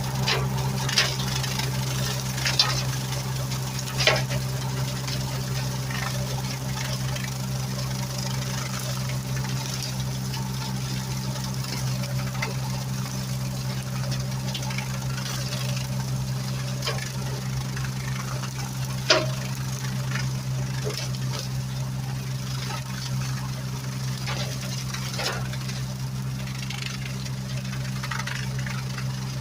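Engine running steadily at a constant low hum, with a few sharp knocks on top; the loudest knock comes about two-thirds of the way through.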